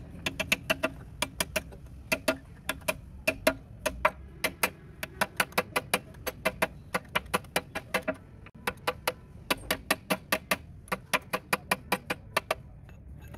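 Hammer tapping steel parts home at the front of a ZF bus gearbox case during reassembly. It is a long series of sharp metal-on-metal strikes with a short ring, about two or three a second, with a brief pause a little past the middle.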